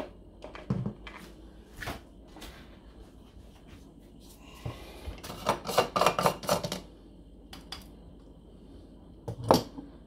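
Plastic and stainless-steel parts of a portable coffee maker's grinder being handled and taken apart: scattered clicks and knocks, a quick run of rattling clicks about five to six seconds in, and a sharper knock near the end.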